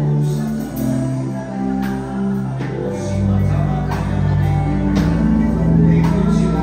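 Live gospel worship music: a man singing into a microphone over sustained instrumental chords and a deep bass, with occasional percussion hits.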